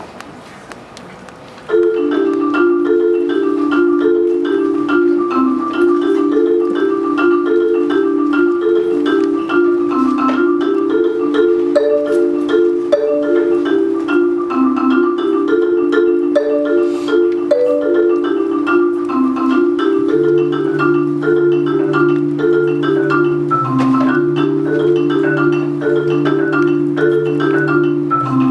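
DeMorrow 4.3 Studio marimba played solo with mallets. After about two seconds of quiet, a fast, repeating pattern of notes begins, and a steady low note joins about twenty seconds in.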